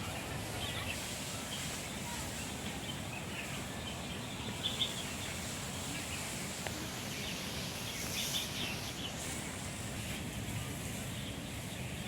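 Small birds chirping a few times against a steady outdoor background hiss.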